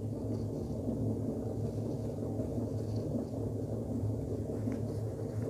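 Steady low hum with faint background noise and no distinct events.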